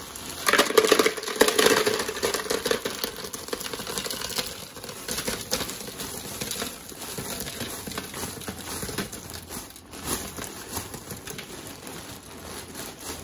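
Ice cubes poured from a plastic bag into a plastic beach bucket: the cubes clatter against the plastic and the bag crinkles, loudest in the first couple of seconds, then quieter scattered clicks as the ice settles and the bag is shaken out.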